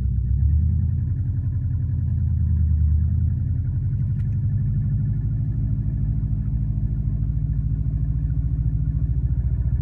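Subaru WRX's EJ205 turbocharged flat-four engine running at a steady speed, its low end a little heavier from about half a second to three seconds in. The noise the owner first took for piston slap turned out to be an exhaust leak from a cracked up-pipe flange.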